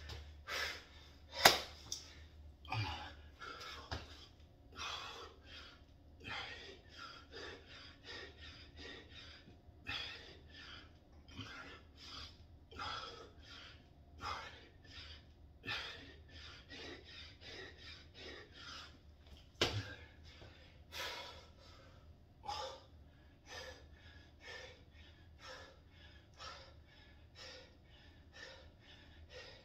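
A man breathing hard from strenuous exercise, with quick noisy breaths roughly once a second. Two sharp knocks sound, one about a second and a half in and one about twenty seconds in.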